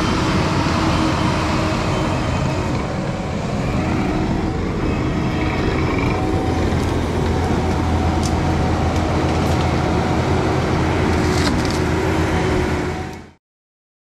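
Kubota compact track loader's diesel engine running steadily under load while it works an OMEF tree shear. A few sharp cracks come through in the second half. The sound fades out abruptly about a second before the end.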